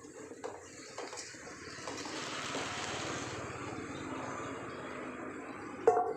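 Kitchen tap water running into a sink during hand dish-washing, swelling to a steady rush about two seconds in, with light knocks of dishware before it. A sharp clatter near the end is the loudest sound.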